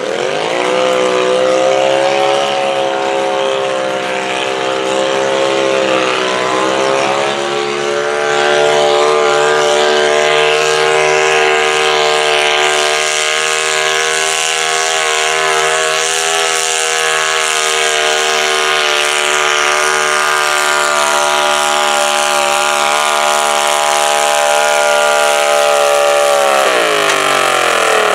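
Super stock garden tractor engine revving up sharply as it starts a pull and running flat out under heavy load from the sled, with a brief dip in revs a few seconds in. It holds high and steady for most of the run, then winds down near the end as the pull stops.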